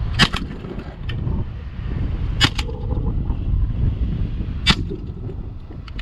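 Shotgun fired three times, about two seconds apart, each shot a sharp crack, over steady wind rumbling on the microphone.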